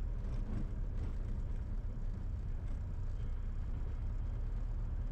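Light aircraft piston engine idling with a steady low rumble while the plane sits after landing.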